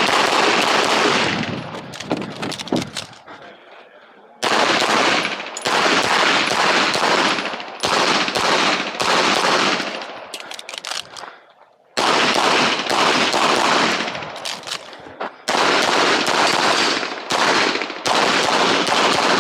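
9mm pistol fire from a CZ Tactical Sport during an IPSC course of fire: loud strings of fast shots, broken three times by short pauses of about a second.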